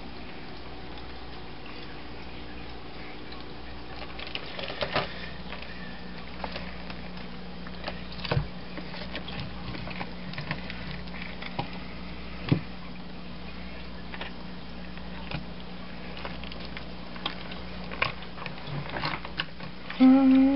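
A knife stabbing and cutting into a pink salmon in a stainless steel sink: irregular wet squelches and knocks of the blade against the fish and the steel, the sharpest about eight and twelve seconds in, over a steady low hum.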